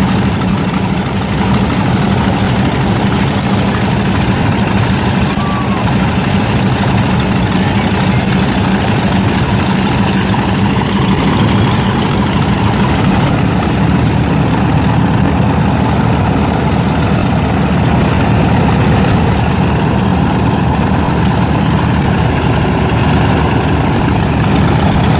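Radial piston aircraft engine running steadily at low power, a loud, even throb.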